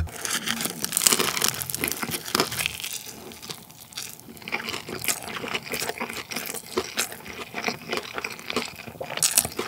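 Crunching and chewing of a crisp deep-fried dumpling: a dense, irregular run of crackles and crunches, busiest in the first couple of seconds and then thinning to softer chewing.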